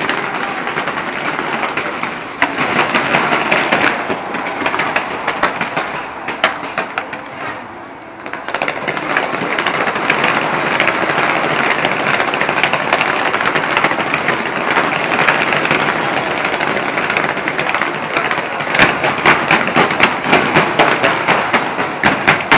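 Aerial fireworks display: dense, continuous crackling and popping of bursting shells. It eases briefly about eight seconds in, then ends in a run of rapid, sharp bangs in the last few seconds.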